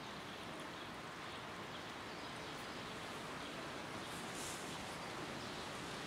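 Steady outdoor street ambience, an even hiss with no clear voice or call, and a brief rustle about four and a half seconds in.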